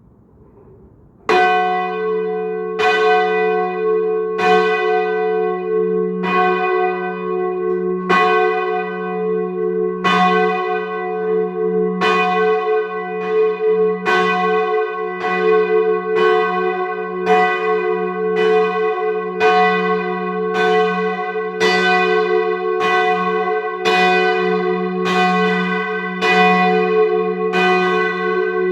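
A heavy church tower bell being rung up, struck about once a second as it swings, each stroke ringing on into the next with a steady low hum underneath. The strikes start about a second in.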